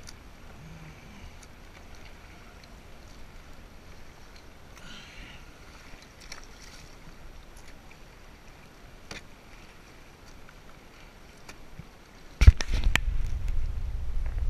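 Kayak paddling on choppy water: faint sloshing and lapping against a plastic sit-on-top hull, with a few small paddle splashes and clicks. Near the end a much louder low rumble hits the microphone suddenly and lasts about two seconds.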